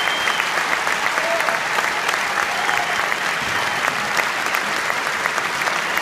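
Large theatre audience applauding a curtain call: dense, steady clapping with no break.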